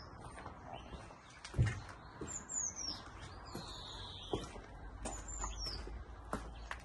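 A small bird calling, a thin high call that slides down in pitch, repeated about every two and a half seconds, with a few short knocks, the loudest about one and a half seconds in.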